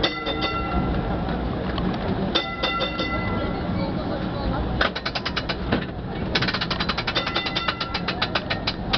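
Taksim–Tünel heritage tram's warning bell clanging, a few ringing strikes at first, then long rapid runs of about ten strikes a second from about halfway through, warning pedestrians off the track. Under it is a low running rumble and crowd chatter.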